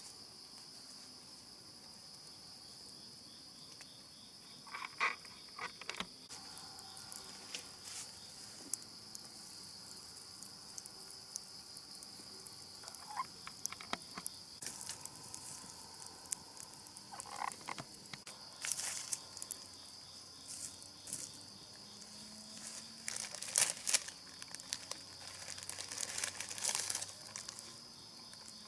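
A steady high-pitched insect drone, like crickets, with scattered rustling and clicking from things being handled, busiest near the end.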